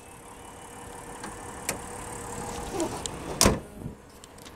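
Hood of a Mitsubishi Pajero being closed: a couple of light clicks and knocks as it is handled, then it slams shut with one heavy thump about three and a half seconds in.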